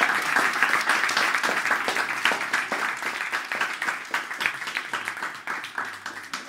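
A small group applauding, with many overlapping handclaps, loudest at the start and gradually dying away.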